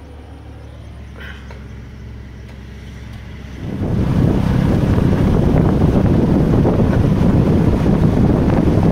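Motorbike engine of a tuk-tuk running with a steady low drone; about four seconds in it is swamped by loud rushing wind and road noise on the microphone as the tuk-tuk drives along.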